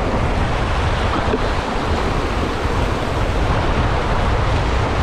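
Whitewater rapid rushing loudly and steadily around a kayak as it runs through the waves.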